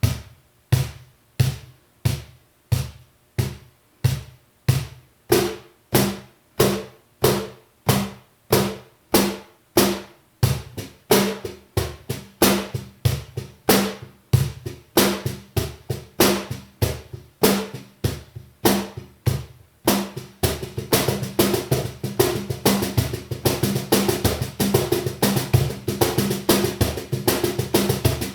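La Rosa Blackie cajón being hand-played, its internal snare wires left unmuted so every stroke buzzes. It starts as a steady beat of single strokes, gets busier from about ten seconds in, and turns to rapid, almost continuous strokes from about twenty seconds in.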